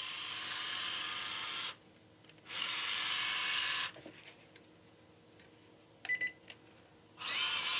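Electric drive motor and gearbox of a Rochobby 1/12 Willys MB RC crawler running at full throttle in two short bursts with a brief pause between them, then a few clicks and a short beep, and the motor spinning up again with a rising whine near the end.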